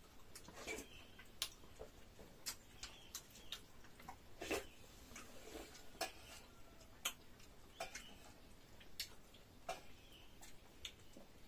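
Faint eating sounds from someone eating dhido and nettle soup: irregular mouth clicks and smacks of chewing, a few of them wetter.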